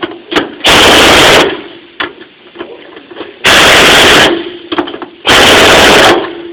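Pneumatic impact wrench hammering in three short bursts, each about three quarters of a second long, with quieter shop noise between.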